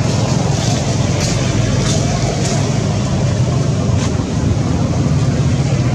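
Steady low engine rumble, like motor traffic running close by, with a few faint ticks in the first half.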